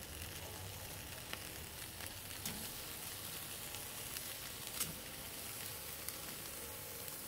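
Raw beef burger patties sizzling on a hot kettle-grill grate as they are laid down one after another, with a few sharp clicks.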